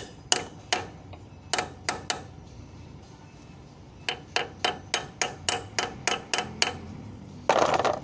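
Hammer tapping a steel lock pin into a forklift's king pin: sharp metallic strikes, a handful at first, then after a pause of about two seconds a quick run of about ten strikes at three or four a second. The lock pin is tight and stiff to drive in. Near the end comes a short, loud clattering burst.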